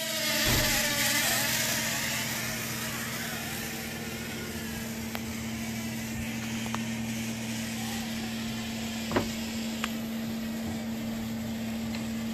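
Small toy quadcopter drone's motors and propellers buzzing steadily in flight, louder in the first couple of seconds as it lifts away from the hand and then holding an even hum. A short knock sounds about nine seconds in.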